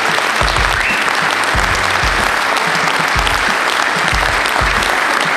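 Audience applauding steadily, over a low, regular beat of background music.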